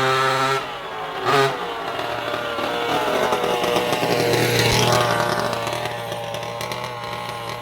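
A 1/5-scale petrol RC car's small two-stroke engine revving hard in short bursts, then running past with its pitch and loudness swelling to a peak about halfway through and falling away.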